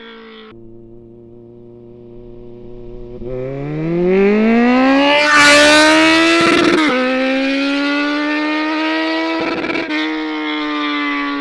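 Kawasaki Z1000 inline-four engine and exhaust idling, then revved up over about two seconds with a loud rasp at the top. It then holds a steady raised speed and eases off slightly near the end.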